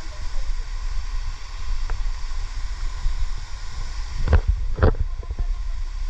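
Wind rumbling on the microphone over the steady rush of a shallow rocky stream, with two sharp knocks about four seconds in.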